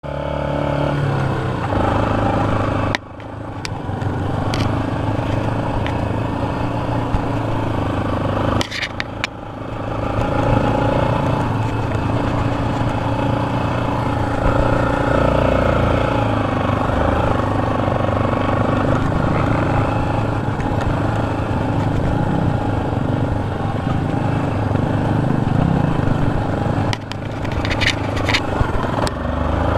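Yamaha sport quad's engine running under throttle across sand, its pitch shifting as the rider opens and closes the throttle, with a sudden drop about three seconds in and another dip about nine seconds in.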